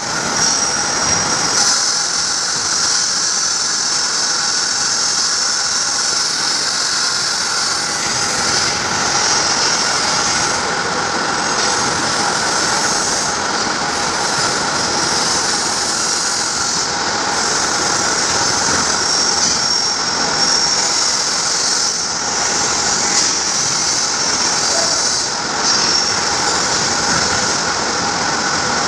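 CNC pipe bending machine running: a steady mechanical whine with several high tones over an even rushing noise, with no strokes or pauses.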